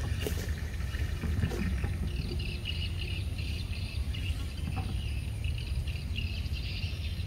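Rural outdoor ambience: high chirping that comes and goes in short pulses, over a steady low rumble. A few soft rustles and clicks of footsteps through grass in the first two seconds.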